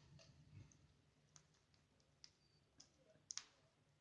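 Near silence with a few faint, sharp clicks, the loudest about three seconds in, over a low steady room hum.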